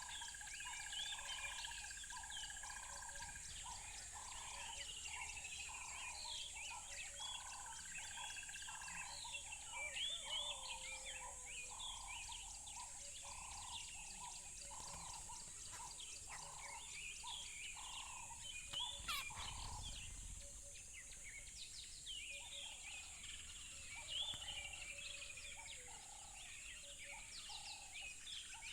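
Many wild birds chirping and singing at once, short chirps and trills overlapping, with a lower call repeating at an even pace for much of the time over a steady high hiss. A single sharp knock with a brief low rumble about two-thirds of the way through.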